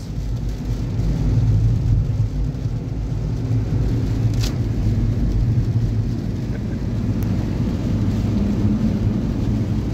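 Steady engine and tyre noise inside a car's cabin, driving on a rain-wet road. There is one short click about four and a half seconds in.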